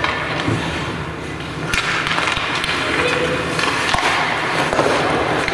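Ice hockey skates scraping and carving on the ice, with sharp clacks of sticks and puck. A clack comes about two seconds in, as play gets going, and the scraping grows denser after it.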